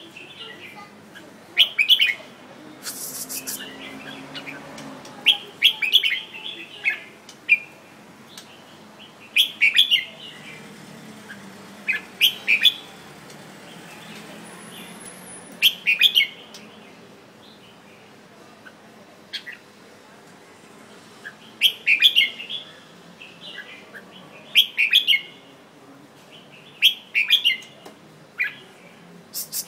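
Red-whiskered bulbul singing: short, bright chirpy phrases repeated every few seconds, with a brief sharp rasp about three seconds in.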